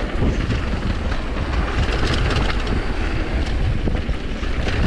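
Commencal Supreme DH downhill mountain bike running fast down a dirt trail: tyres rolling over the ground, with the chain and bike rattling and clicking over bumps, and wind rumbling on the microphone.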